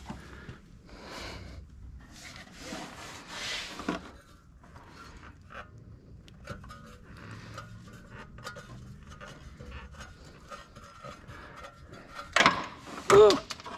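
Scraping and rubbing of hand tools against metal while working around the spark plugs in a car's engine bay, with scattered light clicks. Near the end a man's voice breaks out loudly, twice, just before a dropped part.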